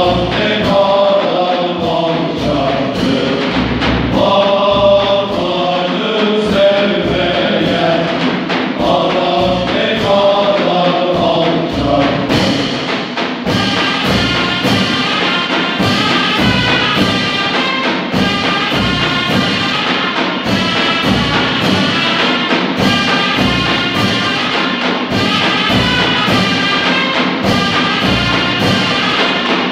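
Ottoman mehter military band performing: a men's chorus sings in unison over steady strokes of the big davul drums, and about thirteen seconds in the reedy zurnas take over the melody above the drums and cymbals.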